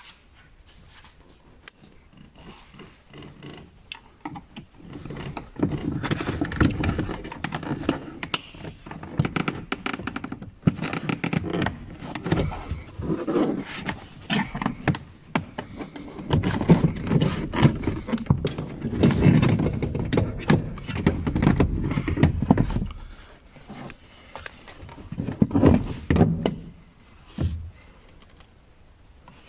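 Hard plastic dashboard trim of a Renault Twingo being handled and worked loose by hand: a long run of knocks, thunks and scraping of plastic on plastic, starting a few seconds in, with a last short burst near the end.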